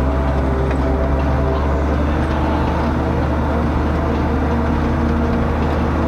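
Tractor diesel engine running at a steady speed while driving, heard from inside the cab as an even low drone with rattle and road noise.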